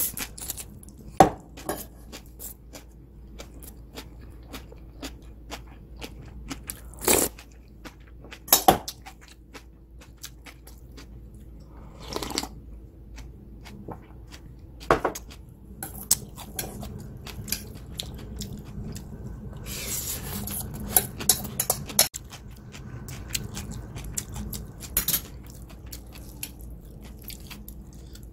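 Someone eating bean sprouts mixed with radish salad from a stainless steel bowl with a metal spoon: chewing and crunching, with the spoon clinking and scraping against the bowl several times. About halfway through comes a longer stretch of drinking bean sprout soup from a small bowl.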